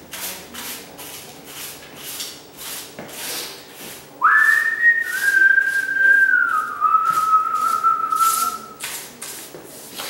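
Broom bristles sweeping debris across a worn tile floor in quick short strokes, about two to three a second. From about four seconds in, a man whistles for about five seconds: a few long notes that step down in pitch, the loudest sound here.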